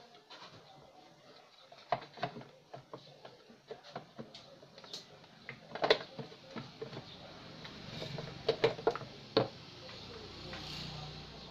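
Irregular clicks and knocks of plastic and metal parts being handled as a replacement speaker is fitted into a CRT television's cabinet. The loudest knock comes about halfway through, and a quick run of clicks follows a couple of seconds later.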